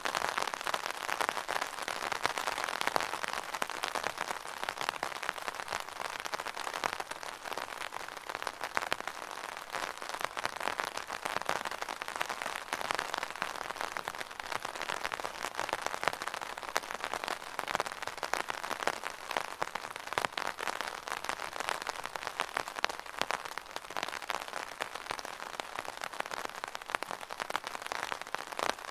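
Rain pattering steadily on an umbrella's fabric canopy, a dense, even spatter of many small drop impacts.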